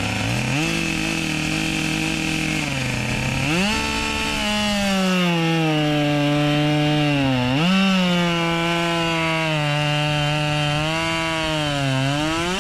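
Husqvarna 572 XP two-stroke chainsaw with a full-skip chain at full throttle, cutting through a log. The engine pitch sinks slowly as the chain bites into the wood and jumps back up, twice, with another dip near the end.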